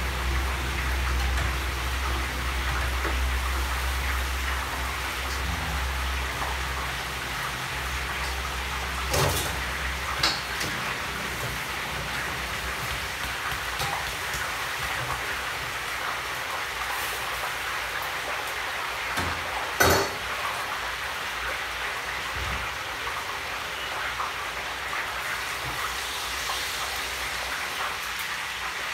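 Food sizzling as it fries in a wok over a gas burner, a steady hiss, with about three sharp clacks of a metal spatula striking the wok, the loudest about two-thirds of the way in.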